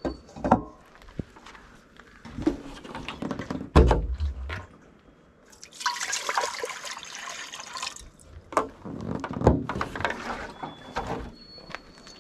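Water pouring from a plastic water jug into a stainless steel pot for about two seconds, midway through. Scattered knocks and clunks of the pot and jug being handled come before and after, the loudest a heavy thud about four seconds in.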